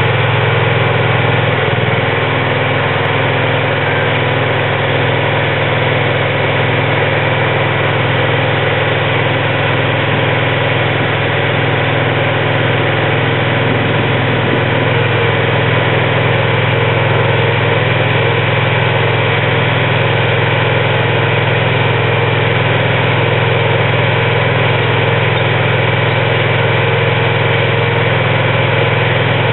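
Engine running steadily at idle, driving the hydraulics of a truck-mounted MARPOL VDM-G100-XL geological drilling rig while its mast is raised upright.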